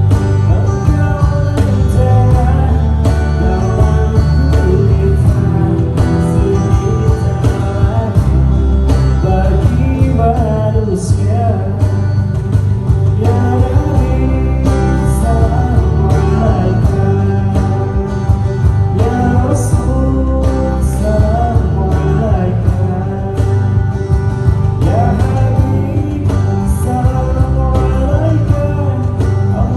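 Live band music: a steady, heavy bass and guitar accompaniment, with a wavering lead melody line coming in about ten seconds in.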